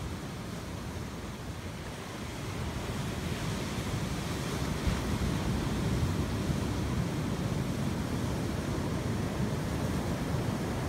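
Ocean surf breaking and washing on the beach, a steady rush that swells louder about two and a half seconds in, with wind rumbling on the phone's microphone.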